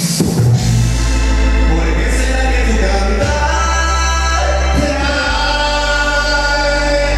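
Dance music played loud through a sound system, with singing over deep, held bass notes that change about every two seconds.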